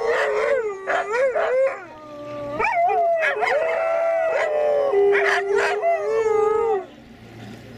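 A pack of husky-type dogs howling together, several howls overlapping and gliding up and down in pitch with yips mixed in. The chorus stops abruptly near the end.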